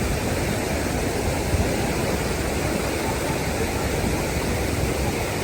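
Steady, unbroken rushing of a waterfall, with a heavy low rumble.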